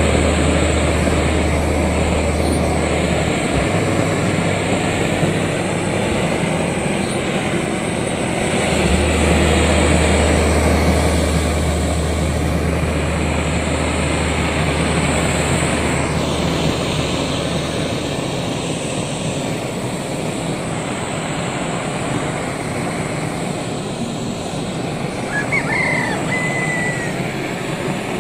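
Handheld gas blowtorch burning with a steady rushing noise as it singes the hide of a hanging carcass. A short high chirp comes near the end.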